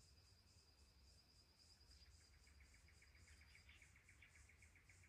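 Faint forest insect chorus: a high chirping pulse about four times a second, over a thin steady whine that fades out about two-thirds of the way through. About two seconds in, a rapid ticking trill joins it at around ten pulses a second. A low rumble lies underneath.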